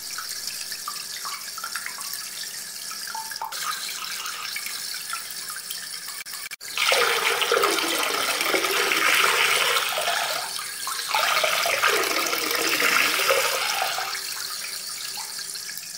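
Running, splashing water, a steady rush that breaks off abruptly about six and a half seconds in and comes back louder and fuller.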